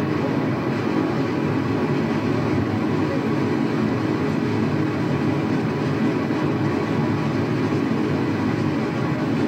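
Steady rushing noise of a waterfall, unchanging in level.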